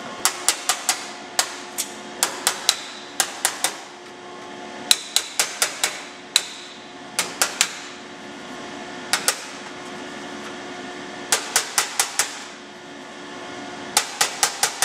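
Hammer tapping a tack-welded sheet-steel butt seam against a hand-held dolly, planishing out heat distortion from the welding. The taps are sharp and light, in quick runs of two to six with short pauses between.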